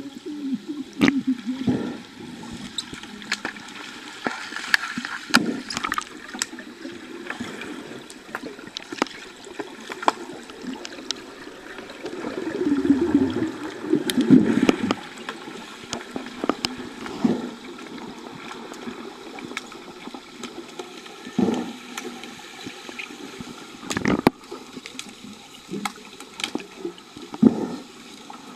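Pool water heard through an underwater camera: a steady muffled wash with scattered sharp clicks and knocks, and a louder stretch of bubbling and churning about halfway through as swimmers thrash close by.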